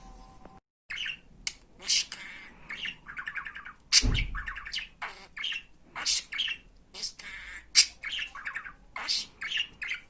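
Pet budgerigar chattering in a quick run of short chirps and squawks, some with a fast rattling warble. A louder thump about four seconds in.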